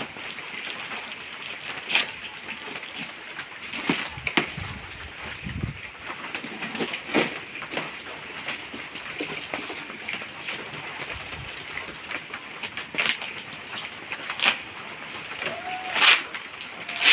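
Plastic wrapping crinkling and rustling as packed items are unwrapped and handled, with scattered crackles and a few soft knocks, over a steady background hiss.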